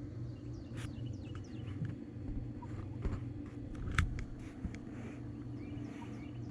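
Young pullets peeping faintly inside their shipping boxes, short high chirps scattered through, over a steady low hum. A few light clicks, the sharpest about four seconds in.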